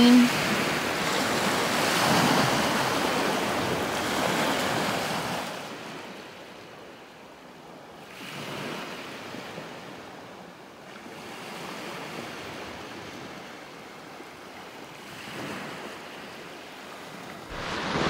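Small waves washing onto a sand-and-pebble shore. The sound is louder for the first five seconds, then drops to gentler swells every three or four seconds.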